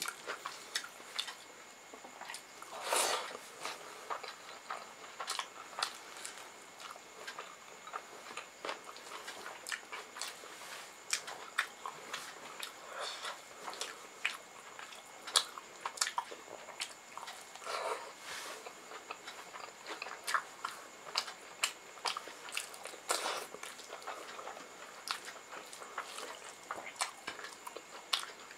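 Close-up eating sounds: chewing with many sharp wet mouth clicks, and fingers mixing and squishing rice and curry on a metal plate, with a few longer squelching rustles.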